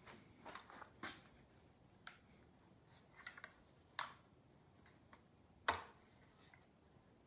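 Near silence broken by a few faint, scattered clicks and knocks, the loudest about two-thirds of the way through.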